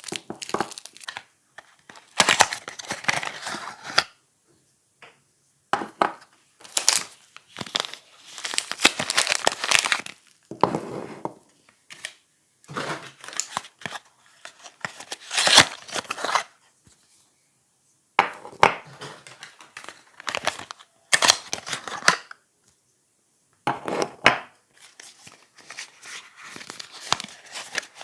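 Soap packaging being crinkled, crumpled and torn open by hand in irregular bursts with short pauses between them.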